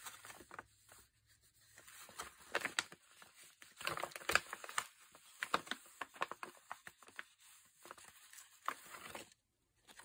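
Irregular dry crinkling and crackling as dried flower heads are handled and picked through, busiest a few seconds in.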